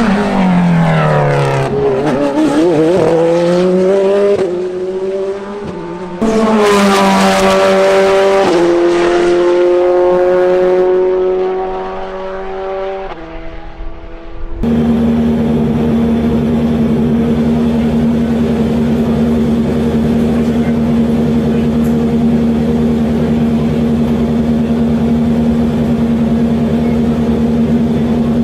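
Corvette C8.R race car's flat-plane-crank V8 on track: revs falling and rising through downshifts, then a louder pass about six seconds in whose pitch drops as it goes by and fades. About halfway through the sound cuts abruptly to a steady, unchanging engine drone.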